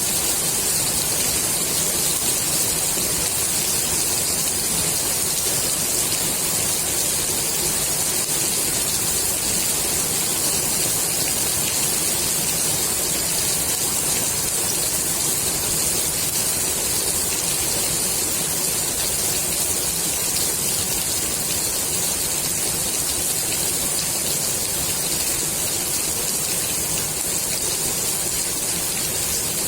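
Steady rain falling on the water of a swimming pool, a dense even hiss of drops with no let-up.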